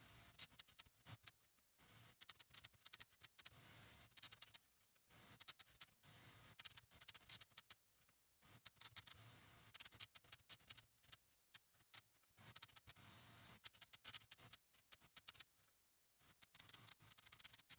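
Typewriter keys striking the paper in an irregular run of sharp clicks, broken by a few short pauses.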